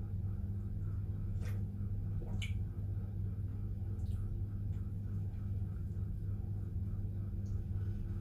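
A steady low electrical hum, with a few faint, short sips from a teacup in the first half.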